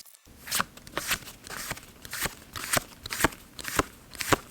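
Pokémon trading cards being flipped through one by one, each card slid off the stack with a short, sharp snap, about twice a second.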